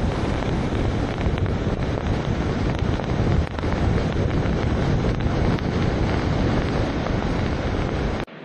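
Wind buffeting the microphone: a steady, heavy rushing noise that cuts off suddenly near the end.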